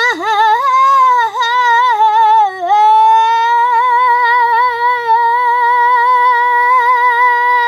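A female voice singing one long held note of "karaoke" with vibrato: wavering up and down for the first few seconds, then held steady until it slides down at the very end.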